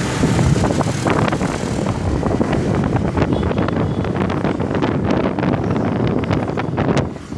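Wind buffeting the microphone, a steady crackling rush of gusts over a low rumble, like a vehicle on the move.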